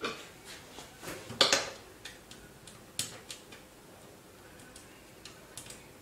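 Light metal clicks and taps of a screwdriver and screws being handled against a desktop PC's steel case while the power supply's mounting screws are put back in. The loudest clack comes about a second and a half in, and the clicks thin to faint ticks later on.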